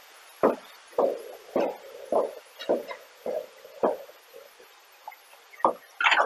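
Footsteps of someone walking on a hard floor, picked up by a body-worn camera: even steps at about two a second for the first four seconds, then fewer, with a louder knock near the end.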